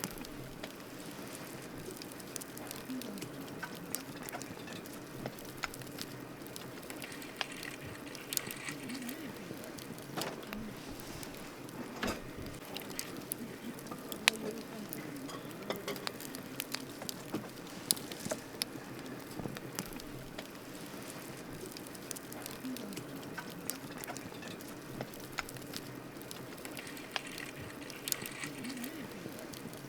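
Wood campfire crackling: irregular sharp pops and snaps over a steady hiss of the flames.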